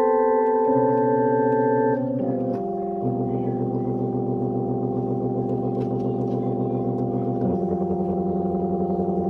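Background music: sustained keyboard chords, organ- or synthesizer-like, with a fast wavering tremolo on the held notes and the chord changing about every two seconds.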